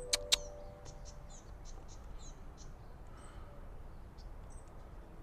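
Small birds chirping in the bush, with short, high, repeated notes throughout. Two sharp clicks come close together right at the start.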